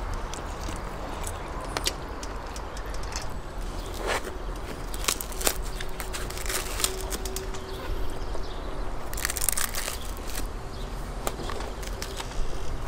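Eating sounds: scattered small clicks and crackles of food and plates, with a crusty round flatbread being torn apart about three quarters of the way through, a dense crackling tear.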